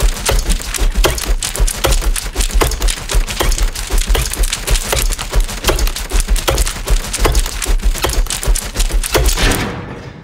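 Fast, dense clatter of desk staplers clacking and sheets of paper being handled at frantic speed, several sharp clicks a second, dying away near the end.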